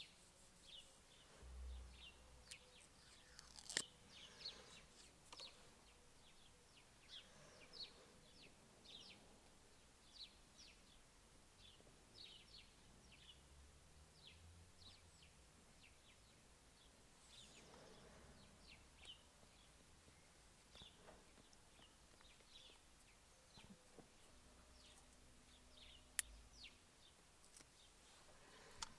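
Near silence, broken by faint scattered high chirps and small ticks from hands handling a phone and a stick-on metal mounting plate. A sharp click about four seconds in and another near the end.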